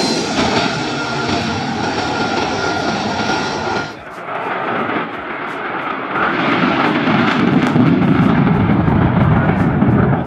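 Lockheed Martin F-35's single F135 turbofan: steady jet noise with a thin high whine. After an abrupt cut about four seconds in, a deeper and louder rumble builds as the jet takes off on full afterburner.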